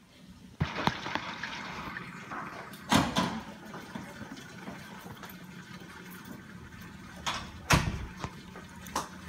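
Aquarium water running and bubbling through its filter and pump, with a steady low hum. A few sharp knocks come through, the loudest about three and eight seconds in.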